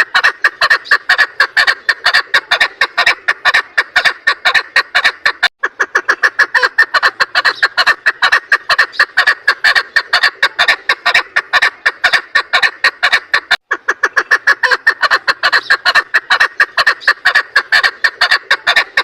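Female chukar partridge calling: a fast, unbroken run of short clucking notes, several a second, with two brief breaks, about five and a half and thirteen and a half seconds in.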